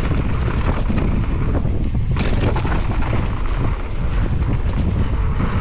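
Wind buffeting the microphone of a mountain bike's action camera at riding speed, over the rumble and rattle of the bike rolling on a dirt trail, with one sharp click about two seconds in.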